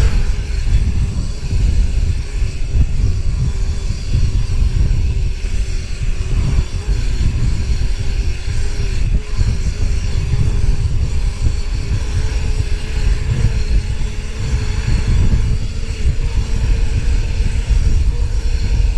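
Vehicle driving: a steady, loud low road rumble with a constant droning tone.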